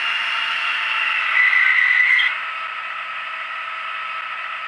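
Diesel engine sound from the ESU LokSound micro V3.5 decoder in a KATO N-scale DR VT18 diesel train, played through its tiny speaker: a thin, hissy running sound with no bass. About a second and a half in a high squeal sounds for about a second, then the sound goes on a little quieter and steady.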